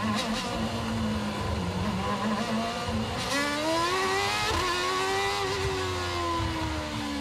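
Formula 1 car's 2.4-litre V8 engine heard onboard, running at low revs for the first few seconds, then accelerating with rising pitch from about three seconds in, with a brief break as it shifts gear.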